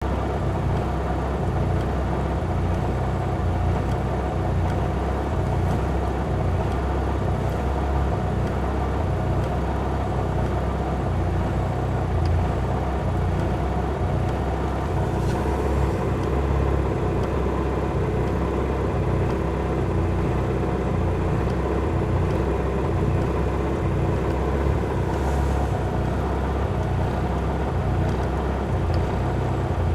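Mitsubishi Lancer Evolution MR RS's turbocharged four-cylinder engine idling rough, a steady low running with an uneven, lumpy beat.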